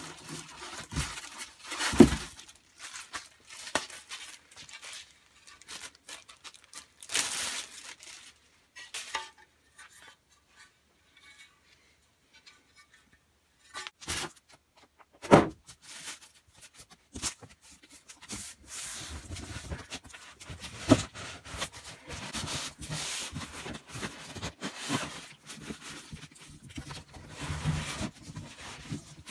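Unpacking sounds: a styrofoam packing block and cardboard box flaps rubbing and scraping as they are handled, with plastic wrap rustling and a few sharp knocks. It goes quiet for a few seconds around the middle.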